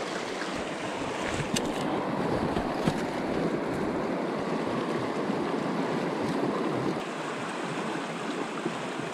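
Small rocky creek running over a shallow riffle: a steady rushing of water, with a single light click about a second and a half in.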